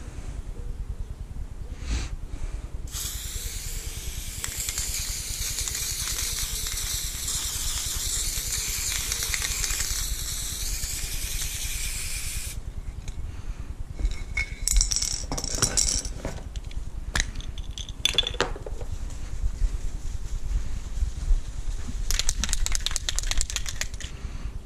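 Aerosol spray-paint can spraying in one long, steady hiss of nearly ten seconds, followed by shorter bursts, rattles and clicks.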